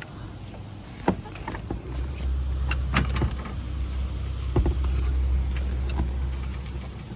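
Metal clanks of a car jack and jack stand being worked under a car as it is let down, with a steady low hum starting about two seconds in.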